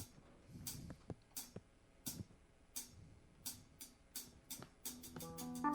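Quiet percussion ticks keep a steady beat, about one every 0.7 s, to open a live band's song. The ticks quicken near the end, and sustained instrument chords come in about five seconds in.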